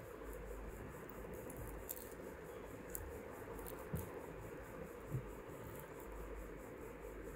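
Quiet steady room hum and hiss, with a few soft clicks, about one a second, from a gold-coloured necklace pendant and its bead drops being handled.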